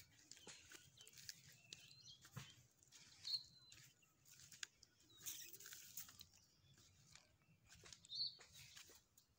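Near silence: quiet outdoor ambience with a few faint, brief bird chirps several seconds apart.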